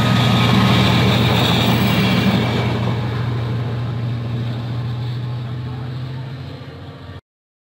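Diesel-hauled train running past and moving away: a steady low engine hum with wheel and rail noise that slowly fades, then the sound cuts off abruptly about seven seconds in.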